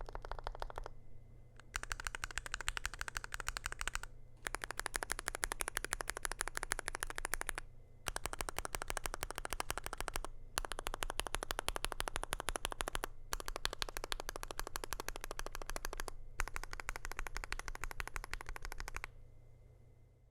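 Fast typing on a DrunkDeer A75 PRO mechanical keyboard in an aluminium case with lubed RAESHA magnetic switches and a stainless steel plate: rapid key clicks in runs of a few seconds with short pauses between, stopping near the end.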